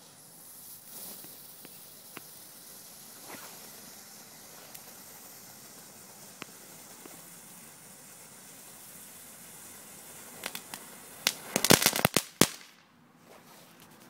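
Small Category 1 ground fountain firework burning with a steady high hiss and a few faint crackles, then a quick run of loud sharp cracks about eleven seconds in before it dies down.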